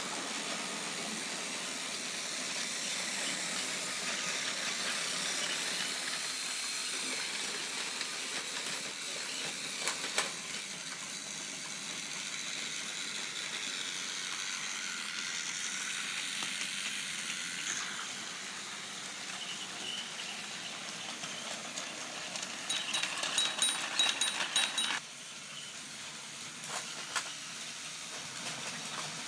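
Battery-powered Trackmaster toy engine's small electric motor and gears whirring steadily as it runs along plastic track. Near the end, a louder run of rapid clicks lasts about two seconds.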